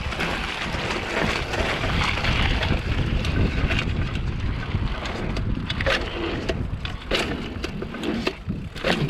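Wind buffeting an action camera's microphone while a bicycle is ridden, with sharp knocks and rattles from the bike scattered through it and several near the end.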